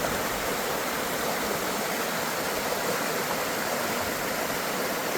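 Mountain stream rushing over rocks: a steady, even roar of water.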